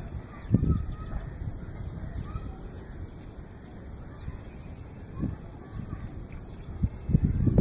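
Wind buffeting the microphone in uneven gusts, loudest about half a second in and again near the end, with faint bird calls and short chirps in the background.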